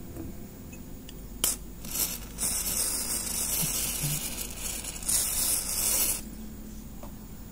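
Spray can hissing through its red extension straw onto a removed CPU socket cover: a brief spurt, then a long burst of about two and a half seconds, then a shorter one of about a second.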